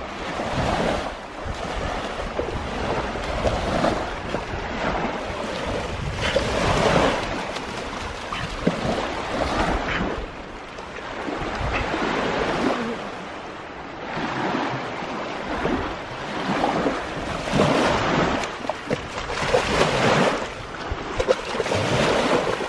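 Small wind-driven waves lapping and washing onto a sandy lake shore, swelling and falling away every second or two, with a German Shepherd wading and splashing through the shallows.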